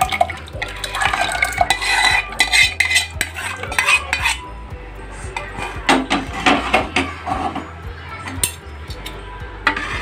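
A metal spoon scraping and clinking against aluminium cookware as tomato tadka is scraped out of a pan into cooked dal in a pressure cooker and stirred in. It comes in bouts of quick strokes: about a second in, again around six seconds, and once more near the end.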